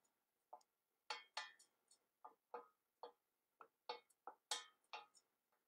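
Mustard seeds popping in hot oil among ground spices in a saucepan: faint, sharp pops at irregular spacing, about two or three a second.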